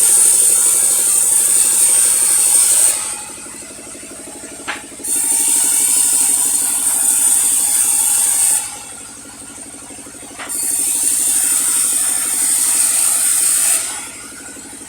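Sawmill saw cutting through a log in repeated passes: three cuts of about three seconds each with a high hiss, separated by short pauses. Under the cuts, the mill's machinery runs with a steady rattle.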